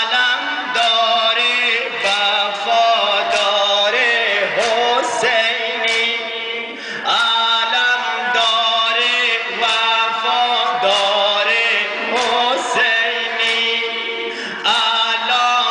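A man chanting a devotional recitation in long, gliding held phrases into a microphone, amplified through a PA system, with a regular beat of sharp strikes underneath.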